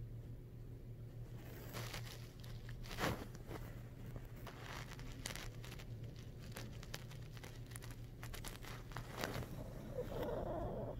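Close rustling and crackling of fur and fluffy blanket brushing against the microphone, a run of small irregular crackles over a low steady hum, thickening into a denser rustle near the end.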